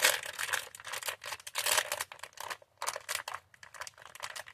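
Plastic candy wrapper crinkling and crackling as fingers tear it open: rapid irregular crackles with short pauses, thinning out toward the end.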